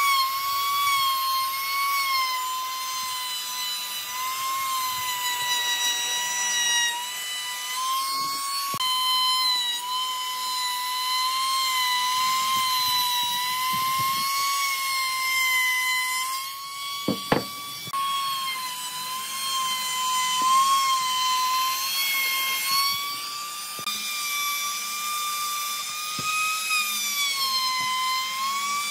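Compact trim router running at full speed, its bit cutting along the edge of a curved pine workpiece: a steady high whine whose pitch dips and recovers slightly as the cut loads it. There is one sharp knock about seventeen seconds in.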